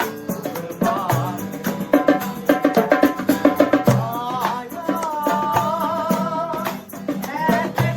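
Background music with a steady drum beat and a bending melody line.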